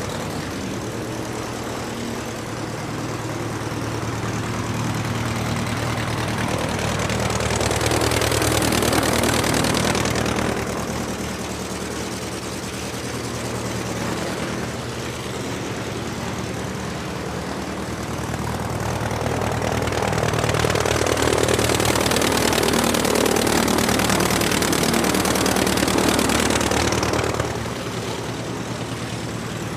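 Aircraft engine running steadily, swelling louder twice as it is throttled up, the second time longer, then dropping back near the end.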